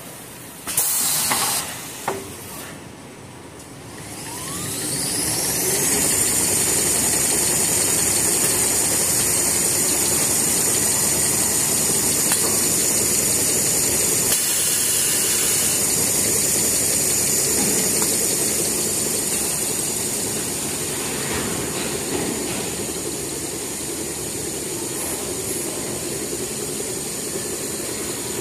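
Toilet paper converting line machinery: a short loud hiss about a second in, then a motor spins up over a couple of seconds with a rising whine and runs on with a steady high whine and hiss.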